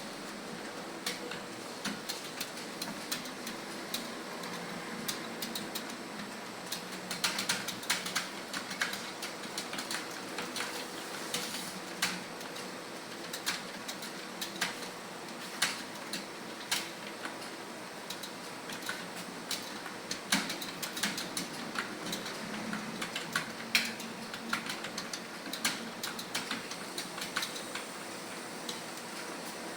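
Computer keyboard keys clicking as a typist types at a steady pace of about 46 words a minute, the keystrokes coming irregularly a few times a second.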